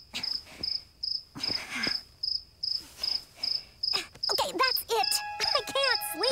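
Cartoon night-time cricket chirping: a steady, even high chirp repeating about two and a half times a second. From about four seconds in, swooping whistled chirps and held notes join in.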